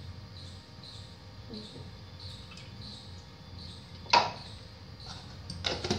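Cooking oil poured from a plastic jar into a kadhai, mostly quiet, with one sharp knock about four seconds in and a shorter clatter near the end.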